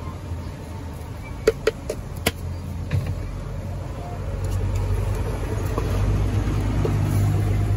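Wooden spoon stirring shredded cabbage in an aluminium saucepan, knocking against the pot several times in the first half. Under it a steady low hum, like a motor, that grows louder in the second half.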